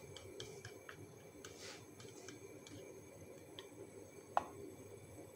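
Eggs being beaten in a ceramic bowl, the utensil clicking against the bowl quickly and unevenly for the first few seconds, then one sharper knock about four seconds in.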